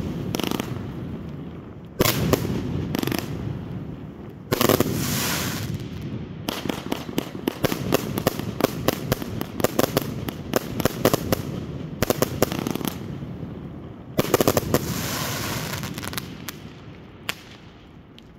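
Folkor "Lucks Out" 88-shot firework cake firing: a loud burst about two seconds in and another a couple of seconds later, then a rapid string of sharp bangs over several seconds. One more loud burst comes a few seconds after that, and then the sound dies away as the cake finishes.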